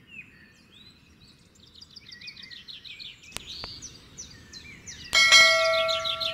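Subscribe-button animation sound effects over birdsong: a single click a little past three seconds in, then a loud bright bell ding just after five seconds that rings on. Birds chirp rapidly throughout.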